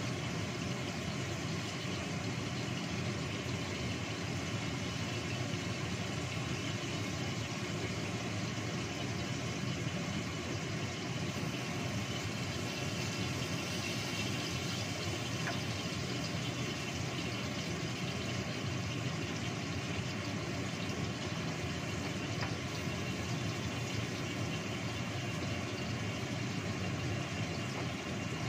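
Steady rumbling hiss of a gas stove burner under a lidded stainless steel wok, with the food cooking inside.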